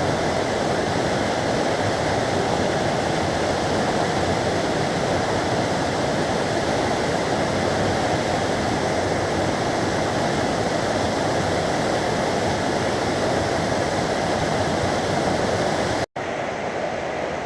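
Shallow mountain stream rushing steadily over rocks. About 16 seconds in the sound cuts out for an instant and the rush comes back a little quieter.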